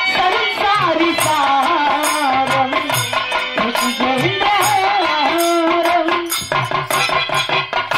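A woman singing a Bhojpuri birha folk song, her voice gliding and ornamented, over a steady drum beat and rhythmic percussion.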